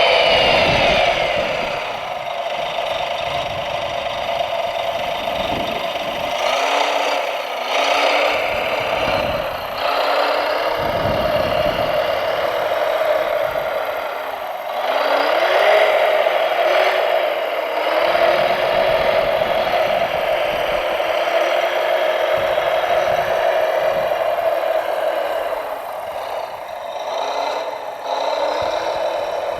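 Radio-controlled model construction vehicles running: a steady engine-like hum from their motors and sound modules, with a short rising rev every few seconds.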